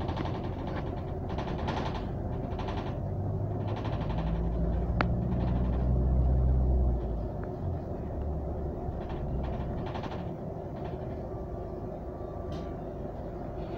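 Double-decker bus in motion heard from inside: a low engine drone with light rattles and knocks from the body. The engine pulls harder about four seconds in and eases off about seven seconds in.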